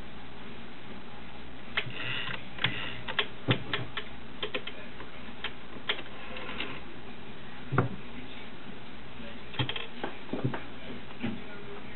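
Irregular small clicks and taps of hands handling the bobbin and bobbin case of a Singer 401A Slant O Matic sewing machine while a bobbin is swapped, without the machine running.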